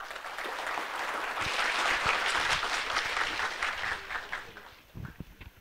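Audience applauding, swelling for about two seconds and then dying away about four and a half seconds in.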